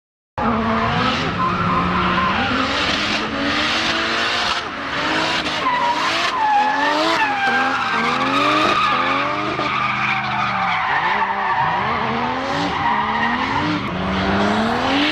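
Drift cars sliding, their engines revving up and down in quick repeated swings over the hiss of squealing tyres. It starts suddenly about half a second in.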